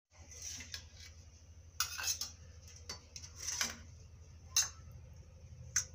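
Steel spoon scraping and clinking against a stainless steel plate and a small steel bowl while curry is scooped and served, in about seven short, separate strokes.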